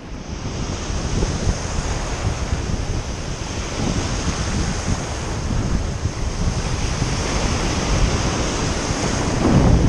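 Sea waves breaking and washing over a rocky shoreline in a steady surf wash, with a louder wave surge near the end.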